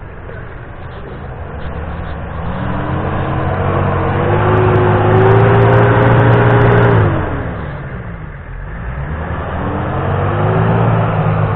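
4x4 SUV engine revving hard under load as it works through a muddy rut: the revs build over several seconds, hold high, drop off sharply about seven seconds in, then climb again and fall back near the end.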